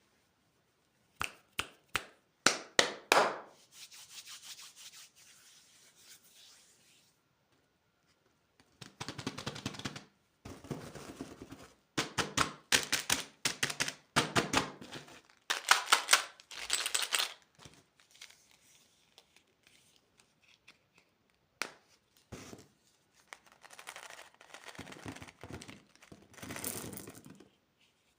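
Crinkling and tearing of plastic candy packaging being handled and opened, in clusters of sharp crackles with short quiet gaps between.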